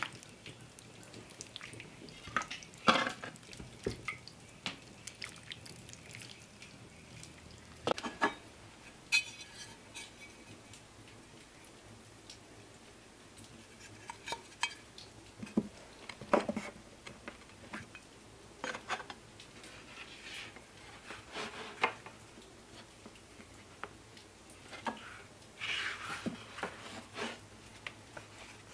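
Scattered clinks, scrapes and taps of pie-making: a metal spoon against a stoneware pie dish and a tin pastry cutter, with one brief ringing metallic clink partway through and soft rustling of pastry dough being handled near the end.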